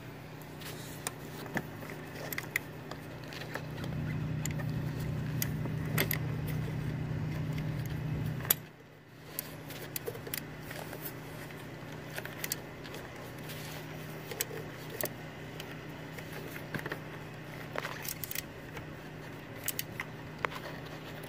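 Small hand wrench clinking against metal in irregular sharp clicks as it tightens the mounting bolt of a camshaft position sensor, over a steady low hum. The hum grows louder about four seconds in and dips out briefly near the middle.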